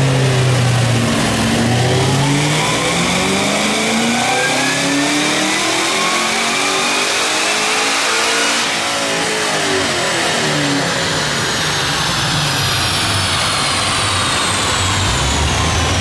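2013 Camaro ZL1's supercharged 6.2-litre LSA V8, fitted with a Stage 1 cam, long-tube headers and the stock dual-mode mufflers, making a wide-open-throttle pull on a chassis dyno. The engine note climbs steadily with a high whine rising alongside it for about eight and a half seconds. The throttle then closes, and engine and rollers wind down with the whine falling. The pull made about 651 horsepower and 609 torque.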